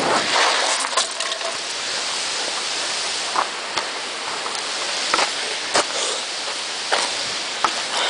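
Wind rumble on the microphone cuts off as the bike comes to a stop, leaving a steady hiss. Scattered sharp clicks and knocks follow as the camera is handled and moved against clothing.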